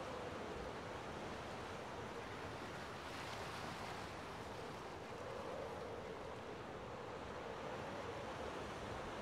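Steady wind-like rushing ambience, even throughout, with a faint hum underneath.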